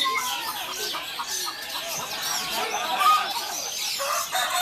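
Many caged songbirds singing at once, a dense overlapping mix of whistles, chirps and trills.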